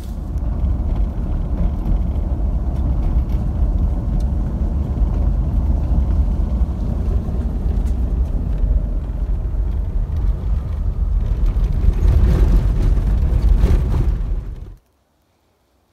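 Steady low rumble of a vehicle driving, heard from inside the cabin. It cuts off abruptly near the end.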